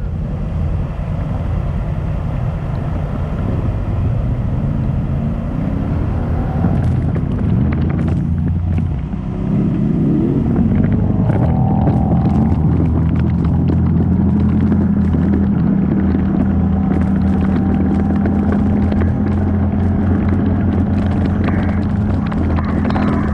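Off-road 4x4 engine running while driving, rising in pitch about ten seconds in and then holding a louder, steady note, with scattered clicks and rattles through the second half.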